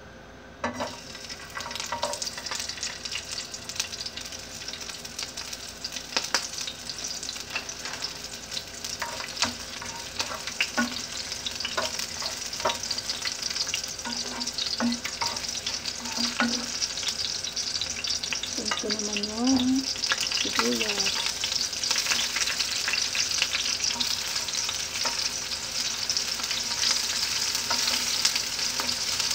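Chopped garlic sizzling in hot cooking oil in a pan as it is sautéed, with the clicks and scrapes of a spatula stirring it. The sizzle starts about a second in and grows louder toward the end.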